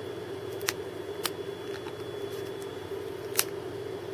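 A few small sharp clicks from handling a plastic hair curler and rubber hair tie in a toy pony's hair, three in all, the loudest near the end, over a steady low hum.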